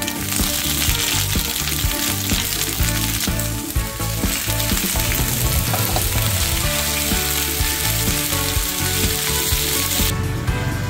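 Food frying in hot oil, a loud steady sizzle that cuts off abruptly near the end, with background music underneath.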